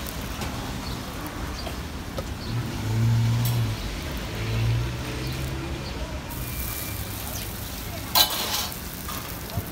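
Paratha frying on a flat griddle, with metal spatulas scraping and tapping on the griddle surface; one loud, rasping spatula scrape about eight seconds in. A motor vehicle's engine hums low in the background for a couple of seconds near the middle.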